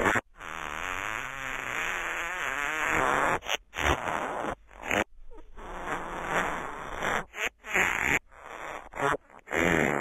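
Fart sounds: one long fart with a wavering, fluttering pitch lasting about three seconds, then a run of shorter farts with brief silences between them.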